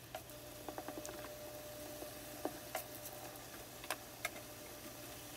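Ground beef frying gently in a stainless steel pan: faint sizzling with scattered small pops and ticks.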